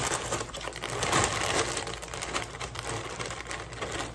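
Clear plastic bag of dry cereal being handled and shaken: the plastic crinkles while the hard cereal pieces rattle and clatter inside.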